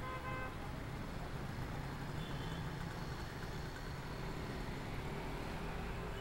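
Steady low rumble of city street traffic, with a brief pitched tone at the very start.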